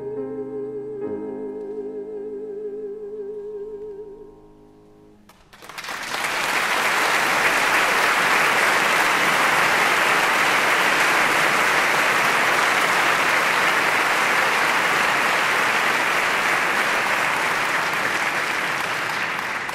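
Stage music with one held, wavering note fades out. About five seconds in, a theatre audience breaks into loud, steady applause that goes on to the end.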